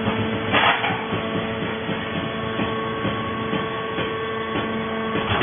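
Hydraulic power unit of a vertical baler running with a steady machine hum and whine while the press compacts coconut fiber. A single sharp metal clank comes about half a second in, and the whine cuts off near the end.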